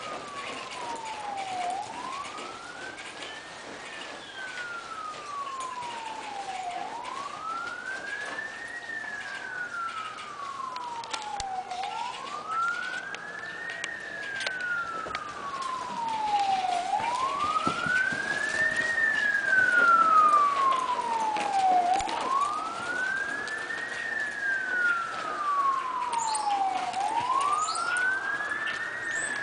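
A siren wailing: one tone sweeps up quickly and then falls more slowly, over and over, about every five seconds. It grows louder around the middle and then holds.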